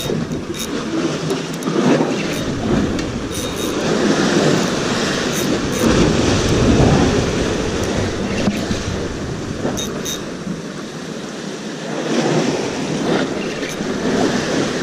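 Sea waves surging and washing against a concrete breakwater, mixed with wind on the microphone, rising and falling in swells. A few light clicks come through now and then.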